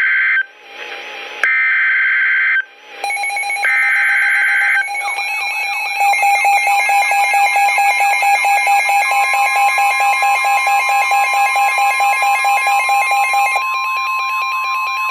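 NOAA Weather Radio emergency alert: three short, harsh SAME digital header bursts in the first five seconds. Then a pulsing alert alarm at about two to three pulses a second, joined about nine seconds in by the steady single-pitch warning alarm tone. The tone carries on after the pulsing stops near the end.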